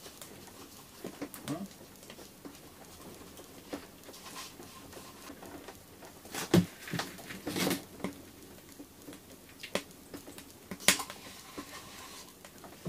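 Sparse small clicks, taps and rustles of hands working with bait and tackle in a small ice-fishing tent. The two sharpest clicks come about six and a half and eleven seconds in.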